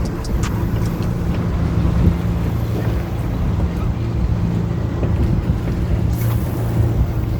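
Steady low hum of a running engine, with wind rumbling on the microphone; a brief rustle about six seconds in.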